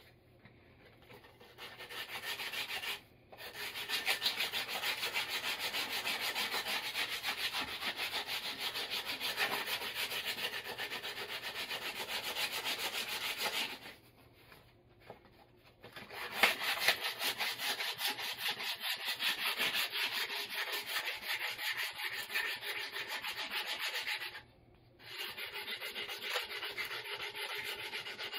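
A wooden axe handle being hand-sanded with a yellow sanding block: quick back-and-forth rasping strokes. The strokes stop briefly about three seconds in, pause for a couple of seconds around the middle, and pause again shortly before the end.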